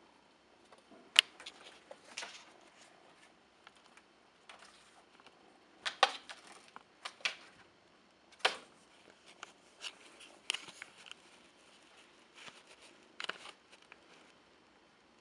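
A tabby kitten pouncing and batting at a pipe-cleaner toy: irregular rustles, scratches and taps of paws and claws on cardboard, paper and a blanket. Several sharper taps stand out, the loudest about a second in.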